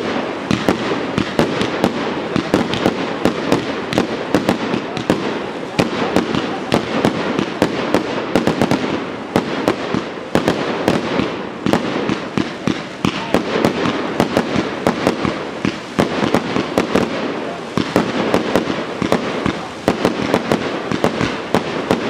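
Fireworks display: aerial shells and cakes going off in rapid succession, a continuous stream of sharp pops and bangs several times a second over a crackling bed.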